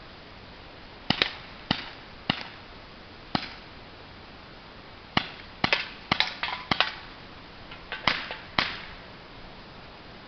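Walther PPQ BB and pellet air pistol firing a string of about fifteen sharp shots at uneven spacing, some spaced out and some in quick bursts, with the densest run about six seconds in.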